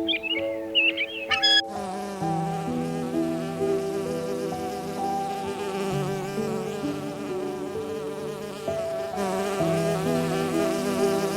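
Insects buzzing in a steady, dense drone that starts about a second and a half in, over soft instrumental music.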